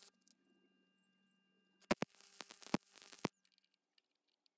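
Stick (arc) welding: the arc hisses and crackles with sharp pops in a burst of about a second and a half starting about two seconds in, after a quieter stretch with a faint hum. A few faint clicks follow near the end.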